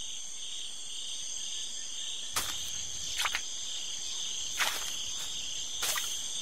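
Rainforest insect chorus, crickets trilling steadily in a high pulsing band, broken by four sharp taps about a second apart as a Rivulus killifish flips and lands on the wet leaf litter.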